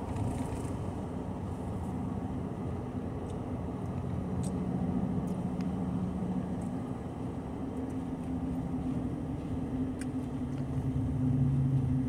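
Steady low hum of a car, heard from inside the cabin, with a few faint light clicks.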